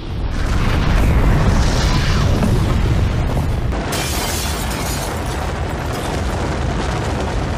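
Avalanche sound effect: a loud, continuous deep rumble with hiss over it, the hiss growing brighter about four seconds in.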